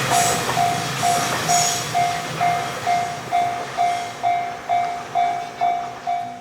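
Japanese level-crossing warning bell ringing in a steady two-tone-free clang about twice a second, over the fading rumble and wheel clicks of a passing freight train.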